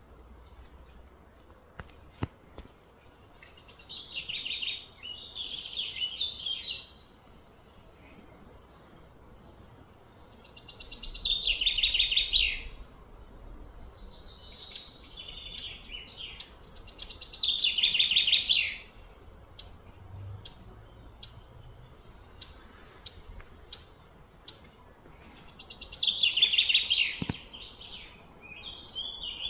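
Bird song: a bird repeats a trilling phrase of about two to three seconds four times, several seconds apart, with short chirps scattered in between.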